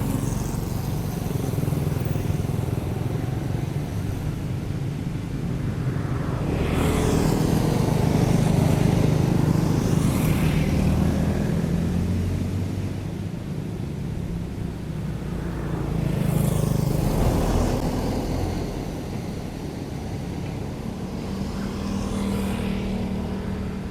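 Hydraulic excavator's diesel engine running and working. Its sound swells under load about six seconds in and again about sixteen seconds in, and each swell carries a rushing hiss.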